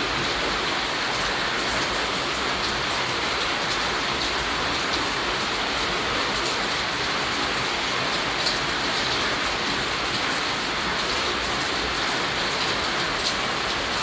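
Steady rainfall, an even hiss with scattered sharp drop ticks on top.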